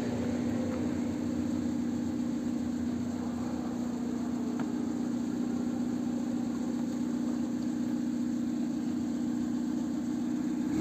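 A car engine idling with a steady low hum.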